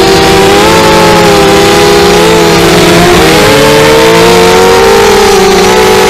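Small FPV racing quadcopter's electric motors and propellers whining, picked up close by its onboard camera. Several close tones shift in pitch together as the motor speeds change, dipping about three seconds in and climbing again.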